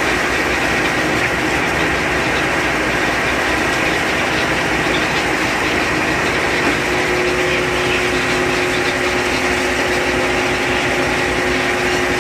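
Fishing-boat machinery running steadily: a constant mechanical drone with a rushing hiss and a few held tones, one of them growing stronger about seven seconds in.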